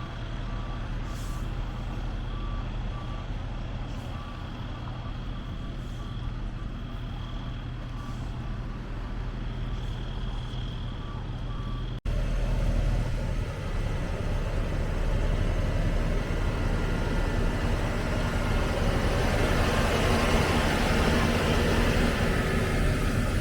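A large truck's engine running with a reversing beeper pulsing steadily. About halfway through there is an abrupt cut, after which louder engine and rushing noise build up.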